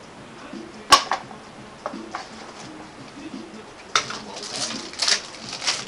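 Trading-card box packaging being opened: a sharp snap about a second in, then crinkling and rustling of packaging from about four seconds in.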